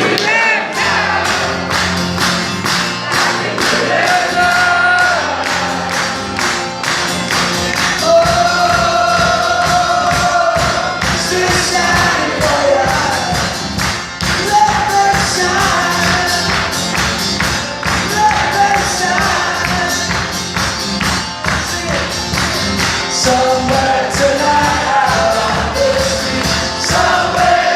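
Live music: an instrumental passage with fast, steady guitar strumming and a long held melody line over it, without a lead vocal.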